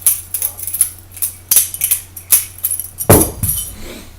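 Butterfly knife (balisong) being flipped: its handles clack against the blade in a string of sharp metallic clicks, a few a second. One heavier thump comes about three seconds in.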